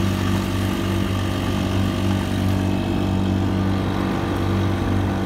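Small motorboat's engine running steadily under way, an even drone that holds the same pitch throughout, over a hiss of wind and water.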